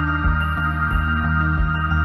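Ambient background music: held chords over a steady beat of about three pulses a second.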